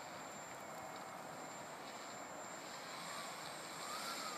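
RC model airplane's motor running at a distance as the plane taxis, its pitch rising and falling briefly near the end.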